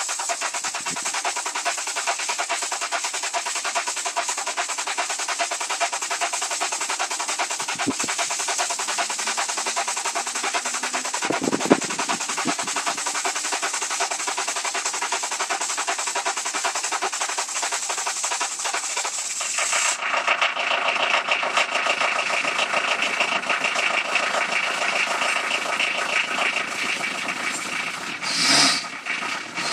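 1996 Ford Fiesta's 1.8 litre Endura-DE diesel engine idling soon after starting, with a fast, even diesel clatter. About two-thirds of the way through the sound turns duller, and two short louder surges come near the end.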